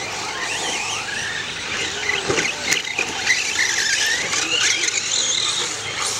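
Motors of several radio-controlled race cars whining as they speed past on a dirt track, the high pitch rising and falling with throttle.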